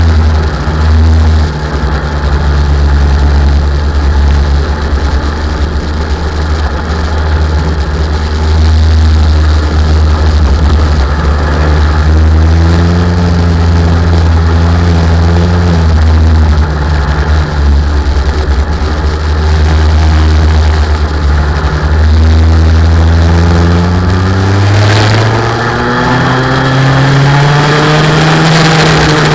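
Racing car engine running hard, its pitch climbing several times as it accelerates, then one long climb that drops off near the end as the driver lifts off or shifts.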